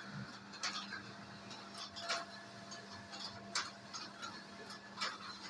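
CNC machine running with a steady hum, a sharp click sounding about every one and a half seconds and fainter ticks in between.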